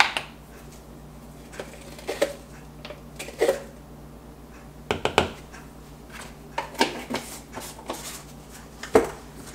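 A plastic baking powder tub and a measuring spoon being handled: the lid coming off and the spoon scooping and tapping, heard as scattered small clicks, taps and scrapes over a faint low hum.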